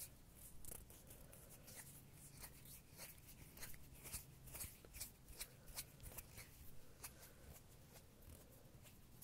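Soft, quiet rustles and light taps of hands and sleeve moving close to the microphone, coming unevenly two or three times a second, over a low hum.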